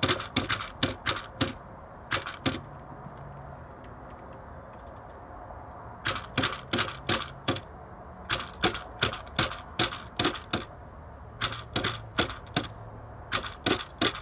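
Scale model 1964 Impala lowrider hopper bouncing on a glass tabletop, its wheels and body clacking down in quick bursts of sharp taps, about five a second, with short pauses between the bursts. A faint low hum from the small RC-car motor runs under parts of it.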